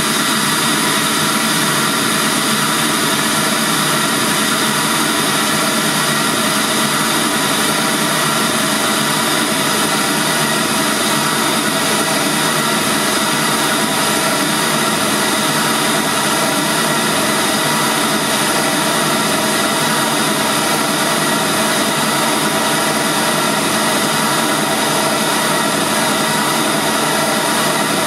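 Machete MM-65 pro-audio style car speaker playing a steady test noise at full volume for a loudness measurement, reaching about 76 dB on the meter. It is a constant, even hiss that does not change.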